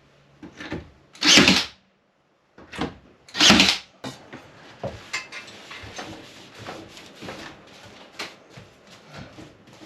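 Two loud bangs about two seconds apart, then a run of lighter, scattered knocks and handling noise.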